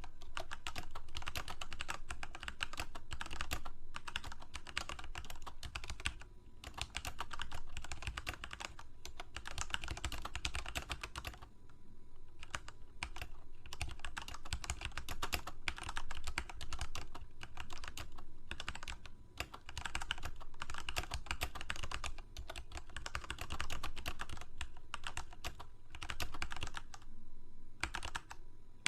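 Typing on a computer keyboard: dense runs of key clicks lasting a few seconds, broken by short pauses.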